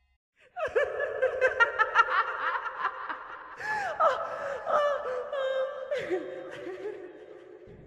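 Horror laughter sound effect: a quick run of pitched laughing syllables that swoop up and down. It starts just under a second in and trails off near the end.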